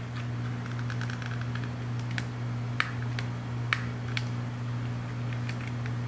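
Small sharp plastic clicks and a brief light rattle as a power window switch's circuit board and plastic housing are handled, over a steady low hum.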